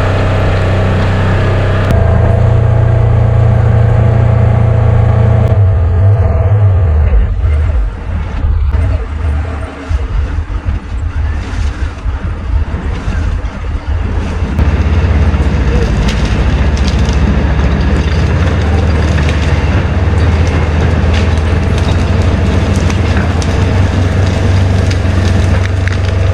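A 200-horsepower crawler bulldozer's diesel engine running steadily as the machine tracks along a narrow trail, with scattered sharp cracks. The sound drops and turns choppy for several seconds in the middle.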